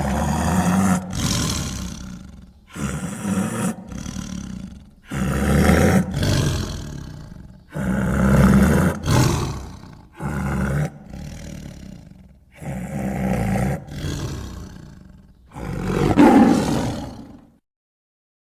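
A rapid series of deep, harsh creature roars, a new one every second or two, each swelling and then dying away.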